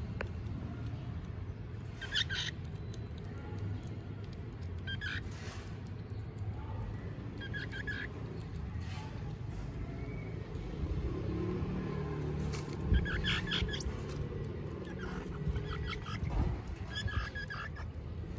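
Baby striped squirrels squeaking in short clusters of high chirps every few seconds, over a steady low background rumble.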